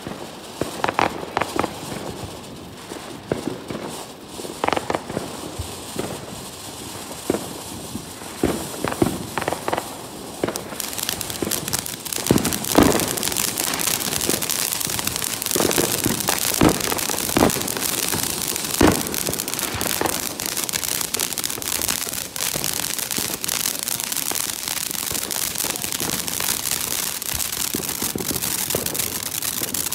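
Ground fountain fireworks burning: scattered sharp pops and crackles at first, then from about eleven seconds in a louder steady hissing spray of sparks with dense crackling.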